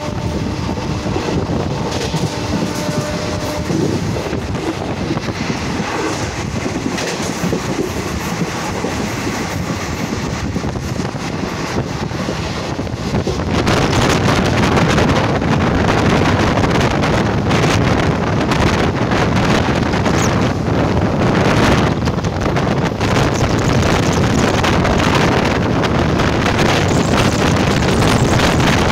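Express train running at speed, heard from an open window of the coach: a steady rumble of wheels on the rails with wind buffeting the microphone. It gets clearly louder about halfway through.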